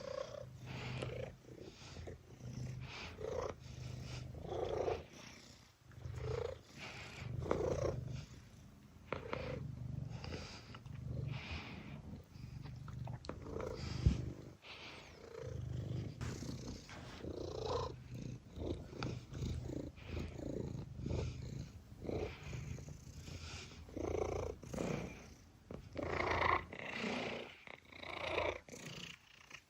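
Domestic cat purring close up, the low rumble rising and falling with each breath in and out. There is one sharp click about halfway through.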